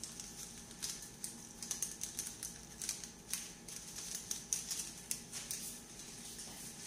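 Shredded cabbage crackling and sizzling in a hot pan on a gas burner: irregular crackles, several a second.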